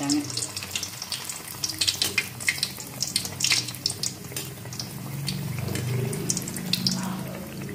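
Vellai paniyaram, a rice-and-urad-dal batter fritter, deep-frying in hot oil: a steady bubbling sizzle with many small crackling pops. A low hum rises about five seconds in and fades near the end.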